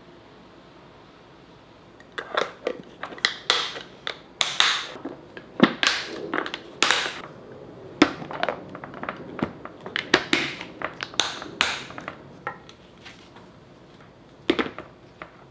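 Kitchenware being handled: a quick, irregular run of knocks, taps and clatters starting about two seconds in, with one more knock near the end.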